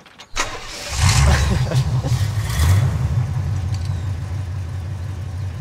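1965 Pontiac GTO's 389 V8 cranked on the starter and catching about a second in, revved unevenly for a couple of seconds, then settling into a steady idle.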